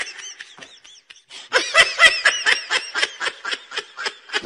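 A person laughing: a quick, high-pitched run of about five laughs a second that starts about a second and a half in, with fainter laughter before it.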